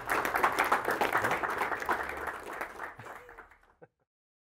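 Audience applauding, the clapping thinning out and then cutting off abruptly just before four seconds in.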